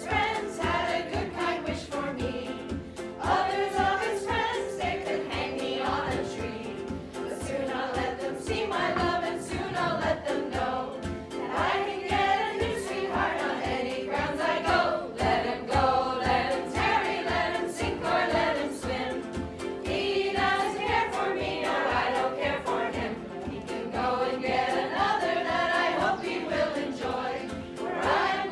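A small mixed choir, mostly women, singing a song together, accompanied by a strummed guitar-like stringed instrument.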